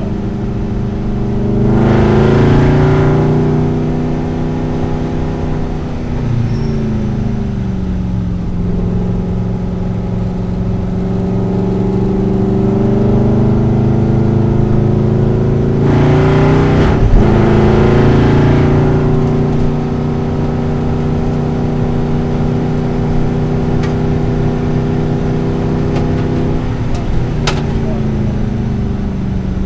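Aston Martin Vantage GT4's V8 engine heard from inside the cabin at racing speed, its pitch falling and climbing again and again as it brakes, changes gear and accelerates through the corners. It gets louder and harsher a couple of seconds in and again about halfway.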